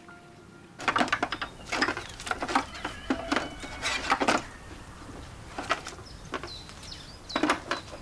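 Footsteps on a paved lane, irregular and starting about a second in, with birds chirping in the background.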